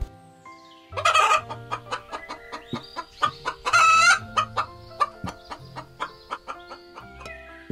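Two loud animal calls, one about a second in and one near the middle, with quick sharp ticks between them, over soft background music.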